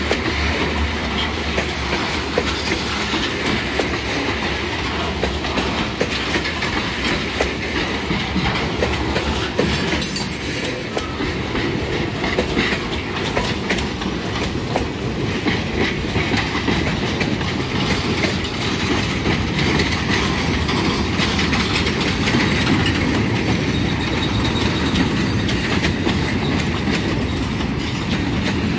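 Freight train cars (lumber flatcars and gondolas) rolling past: a steady rumble with wheels clicking over the rail joints.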